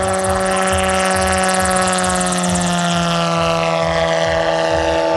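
Brushless electric motor and propeller of a giant-scale RC MTOsport autogyro (Hacker A150-10) humming steadily as the model flies low past, the pitch dropping about two to three seconds in as it goes by. A low rhythmic pulsing runs underneath.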